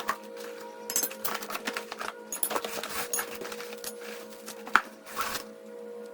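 Metal parts of a wheel-dolly storage rack clinking and rattling as they are unpacked and handled, with one sharper clank near the end. A steady drone runs under it.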